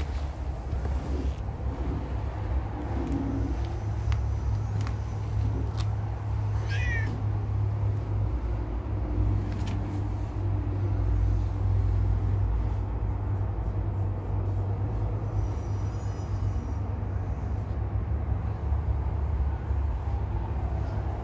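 Domestic cat purring while its belly is rubbed: a steady low rumble.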